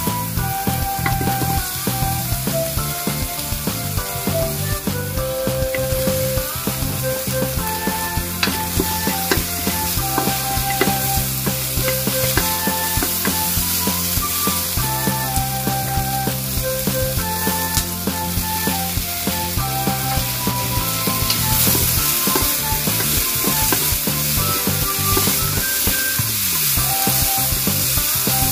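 Vegetables sizzling in a hot wok as a wooden spatula stirs and scrapes them, over background music with a melody and a bass line.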